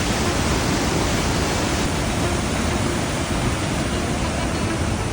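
Fast-flowing mountain river rushing steadily: a loud, even roar of water.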